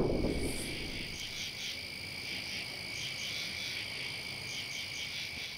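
Frogs calling in chorus: a steady high-pitched trill with short chirping calls repeating irregularly over it. A low rumble fades out in the first second.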